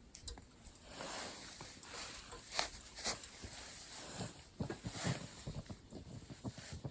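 Irregular rustling and light knocks of hands handling things, with a few brief swishes about a second, two and a half and three seconds in.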